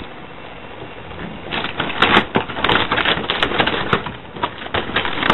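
Large plastic wheeled garbage cart being rolled over concrete pavement, its wheels and body rattling in a fast, irregular clatter that starts about a second and a half in.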